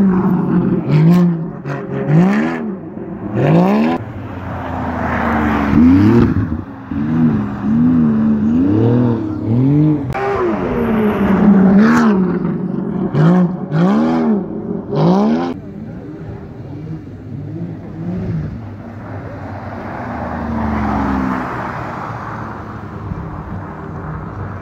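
Race car engine revving up and down again and again as the throttle is worked while the car slides on the ice track. It is loud for about the first fifteen seconds, then drops away to a fainter, distant engine sound.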